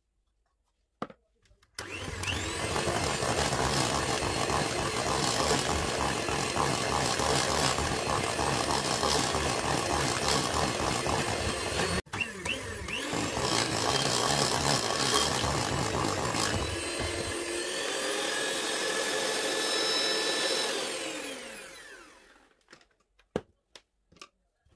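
Electric hand mixer running, its two wire beaters whipping butter and icing sugar into buttercream in a bowl. It starts about two seconds in, breaks off for an instant midway, and winds down with a falling whine near the end.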